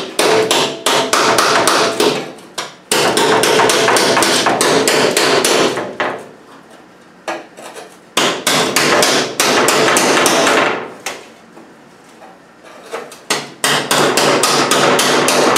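Hammer driving a thin hardened steel chisel into the aluminium seat-box panel of a Land Rover Defender, splitting it apart at the spot welds. Rapid runs of sharp blows come in four bursts, with pauses of a second or two between them.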